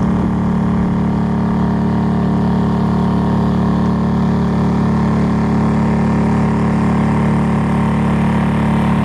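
Boat motor running steadily at cruising speed, a constant low drone that holds the same pitch throughout.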